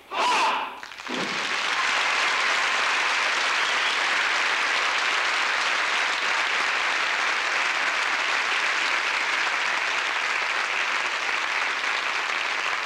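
Large audience applauding steadily at the end of a choir's song, the clapping taking hold about a second in.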